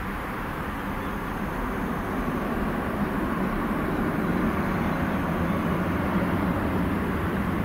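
Airbus A320-214's twin CFM56-5B turbofan engines at takeoff thrust, climbing away: a steady, deep jet rumble that grows gradually louder.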